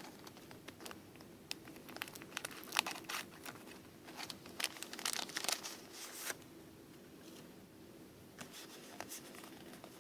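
The crinkly plastic packet of a Pokémon trading card being torn open and handled: a run of sharp crackles and rips that thins out about six seconds in, leaving only a few faint crinkles.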